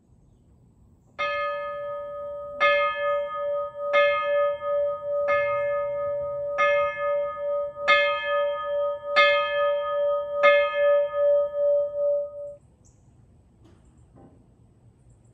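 The bell of steam locomotive Illinois Central 764 being rung, eight strokes about 1.3 s apart, each ringing on into the next. The ringing stops abruptly a couple of seconds before the end.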